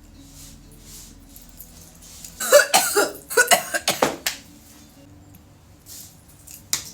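A woman coughing, a quick run of about half a dozen loud coughs starting about two and a half seconds in and one more cough near the end. This is the coughing fit that follows a long 'blinker' hit from a cannabis vape pen.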